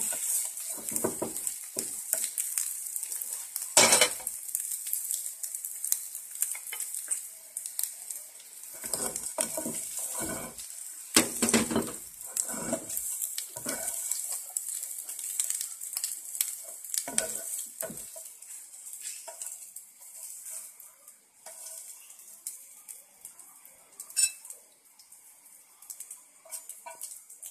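Omelette sizzling in hot oil in a frying pan while a spatula scrapes and knocks against the pan, breaking up and turning it, with the loudest knocks about 4 and 11 seconds in. The sizzle dies down near the end.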